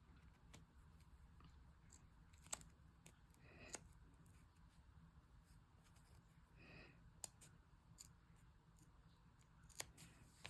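Scissors cutting through layered vinyl and thin non-fray canvas: faint, with a few sharp snips spread out and soft cutting sounds between them.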